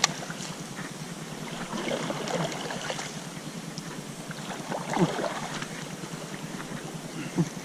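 Water splashing and sloshing around a canoe on a river, with two louder splashes about five seconds in and near the end.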